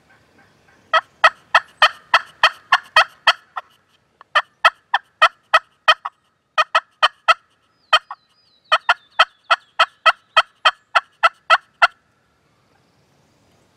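Wild turkey yelping: several runs of sharp, evenly spaced notes, about three to four a second, with short breaks between the runs.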